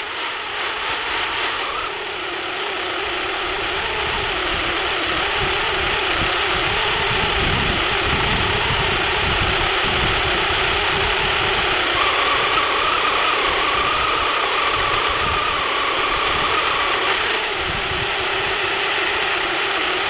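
Embraer E190's CF34 turbofan engines running at taxi power as the jet taxis and turns, a steady jet roar with a steady whine. A higher whine joins about midway and fades again.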